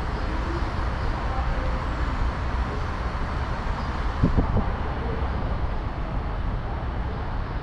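Steady low vehicle rumble, with a couple of short knocks a little past the middle.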